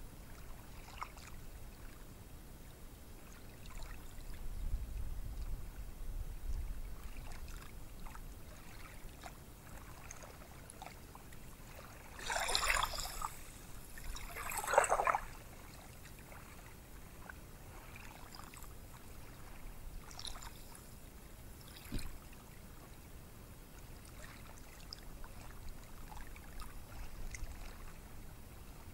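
Ocean surf on a beach, a steady faint wash of water, with a low rumble early on and two louder rushes of noise about two seconds apart a little before the middle. A single sharp click comes about three quarters of the way through.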